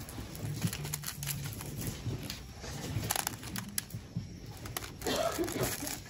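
Rustling and light clicks of small items being handled and sorted, with faint voices in the background.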